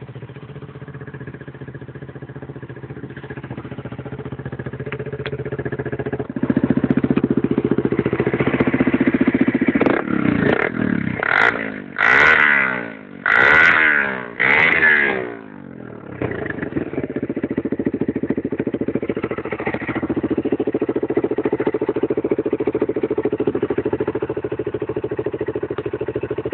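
ATV (quad bike) engine running. It grows louder about six seconds in and gives four or five quick revs about ten to fifteen seconds in, then settles back to a steady run.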